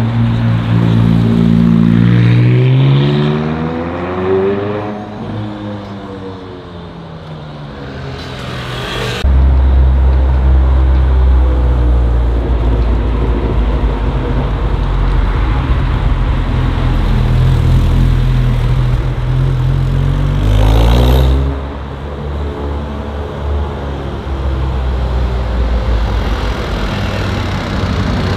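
Supercar engines revving in the street. The engine pitch climbs over the first few seconds, a loud low engine rumble cuts in suddenly about nine seconds in, and the revs climb again before the rumble drops away around twenty-one seconds in.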